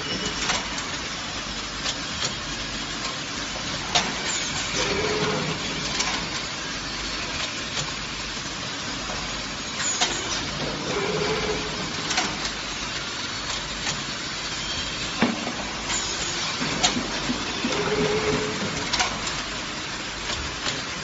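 Mushroom sawdust bag-filling and sealing machine running: a steady mechanical noise with sharp clicks and knocks every couple of seconds and a short hum that comes back about every six or seven seconds.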